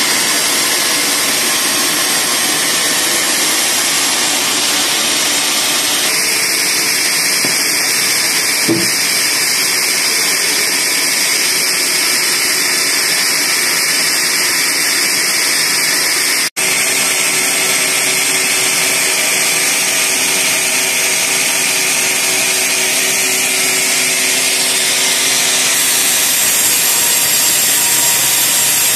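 Band sawmill running and cutting through a log: a steady, loud sawing noise. It drops out for an instant a little past halfway.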